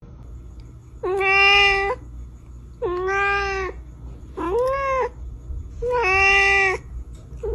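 A cat meowing repeatedly: four drawn-out meows, each just under a second long, about a second and a half apart, with a fifth starting at the end.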